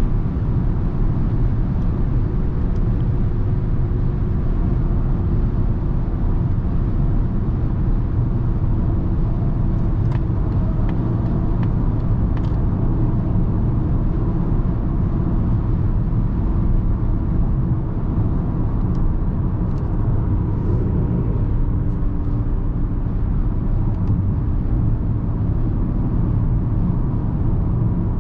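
Steady road and wind rumble inside the cabin of a 2021 Mazda MX-30 electric car driving on the motorway. The drive motor makes no engine note.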